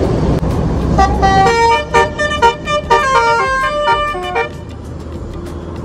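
Intercity bus's multi-tone "telolet" musical horn playing a quick tune of short notes, starting about a second in and stopping after about three and a half seconds, over the low rumble of a bus engine.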